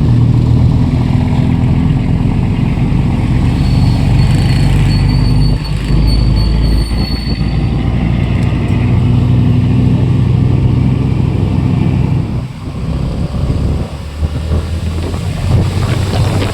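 Motorcycle engine running steadily on the move, with road and wind noise. The engine eases off for a moment about twelve seconds in, then picks up again.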